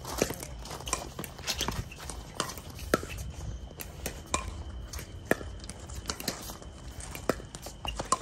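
Pickleball rally: paddles striking the hard plastic ball in a string of sharp pops, irregularly spaced about a second apart.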